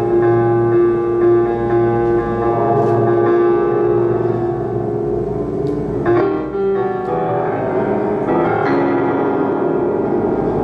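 Slow ambient music of long held keyboard-like tones, moving to a new chord about six seconds in.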